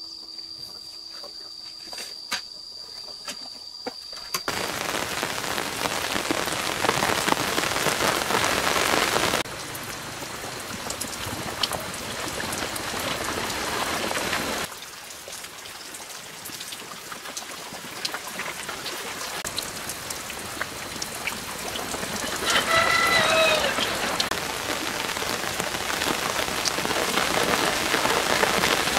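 Steady rain falling, starting about four seconds in after a quieter opening with a faint steady tone. The rain's level jumps up and down a couple of times. A short pitched call sounds about three-quarters of the way through.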